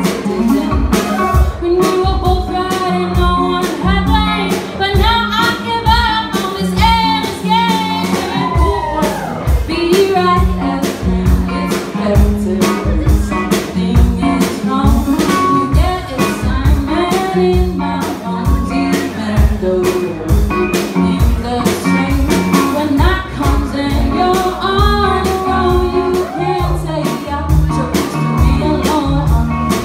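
Live band performing a song: a lead singer's voice over a drum kit keeping a steady beat, with guitar and a repeating low bass line.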